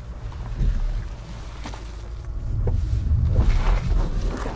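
Rivian R1T electric pickup crawling over a rock ledge: its tires crunch and grind on rock and gravel in short bursts, over a low wind rumble on the microphone that swells in the second half. There is no engine note.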